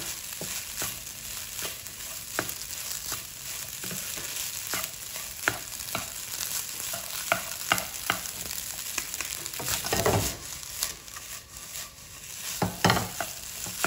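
Egg fried rice sizzling in a pan while a wooden spatula stirs and scrapes it, with frequent sharp knocks of the spatula against the pan. The sound grows louder about ten seconds in and again near the end.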